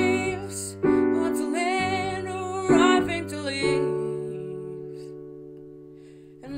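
Digital keyboard with a piano sound playing a slow run of chords, while a woman sings a wordless, wavering line over the first few seconds. The last chord is held and fades away over the final three seconds.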